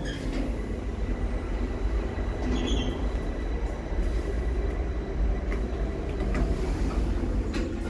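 OTIS Gen2 Life machine-room-less traction elevator car travelling up, with a steady rumble and hiss of the ride heard inside the cab. It swells louder near the end.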